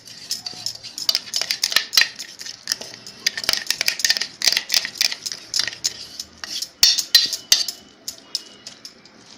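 A spoon clinking and scraping against metal kitchenware, in quick irregular strokes, as ground ginger paste is scraped out of a mixer-grinder jar into a strainer.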